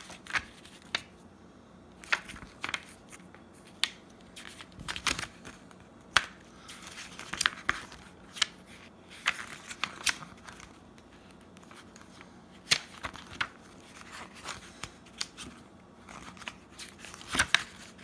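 Pages of a paper catalogue booklet being turned and pressed flat by hand: irregular crisp rustles and page flicks, about a dozen of them.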